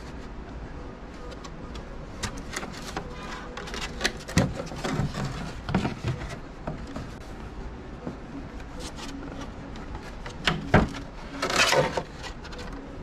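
Thin clear Lexan (polycarbonate) RC car body shell being handled and turned over, its plastic crackling as it flexes and clicking and knocking against the booth floor, with a louder crackly handling burst near the end. A steady low hum runs underneath.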